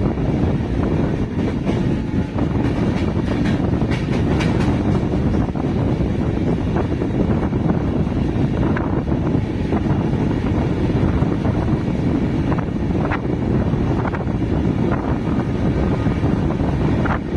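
Running noise of an express passenger train heard from its open doorway: a steady heavy rumble of wheels on rail, with scattered sharp clicks from the wheels and wind on the microphone.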